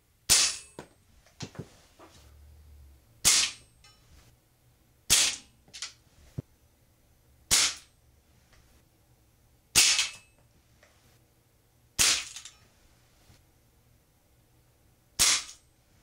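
Crosman American Classic multi-pump air pistol firing seven shots, one every two to three seconds, each a sharp crack. Fainter clicks fall between some of the shots.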